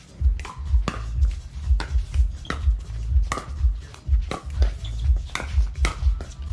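Music with a heavy, steady bass beat, with sharp clicks over it.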